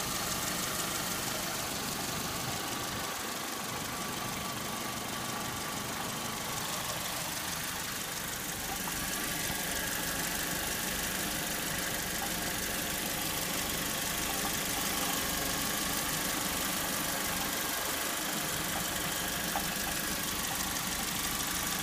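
Saturn S-series four-cylinder engine idling steadily with a clanking, clanging noise, which the owner likens to a muffled cow bell and suspects comes from the catalytic converter.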